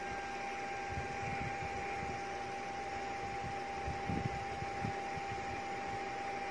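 Small cooling fan of a Philips Lumea Precision Plus IPL hair-removal handset running: a steady hiss with a constant whine. A few faint low knocks sound about four and five seconds in.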